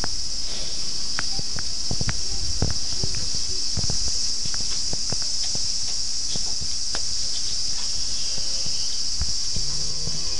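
Holstein calves shifting and feeding in wooden barn pens: irregular knocks and clicks of hooves, wood and hay, over a steady high-pitched hiss. A short low pitched sound begins near the end.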